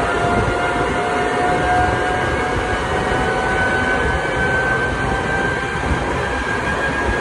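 NEUERO GSD 280/270 EL pneumatic grain conveyor running on its electric drive: a loud, steady machine noise with a high whine that slowly rises in pitch.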